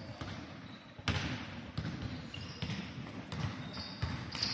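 Basketball dribbled on a wooden gym floor: a series of bounces, one loud bounce about a second in. Short sneaker squeaks near the end.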